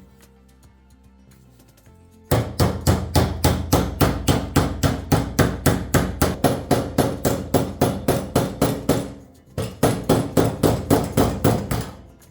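Hammer striking in quick, even blows, about four or five a second, starting a couple of seconds in, pausing briefly about three-quarters of the way through, then carrying on.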